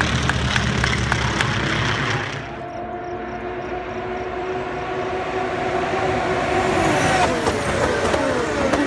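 For about two seconds, noisy crowd sound with wind rumbling on the phone microphone. Then an IndyCar's twin-turbo V6 is heard at high revs, its note climbing as it approaches. The pitch drops as the car passes about seven seconds in, and more cars follow close behind.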